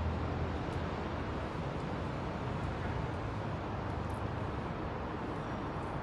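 Steady outdoor city background noise: a low, even rumble with no distinct events.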